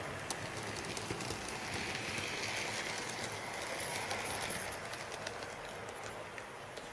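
HO-scale model train running on its track: a steady rolling noise with many quick, irregular clicks of the wheels over rail joints. It swells and then fades as the train goes past.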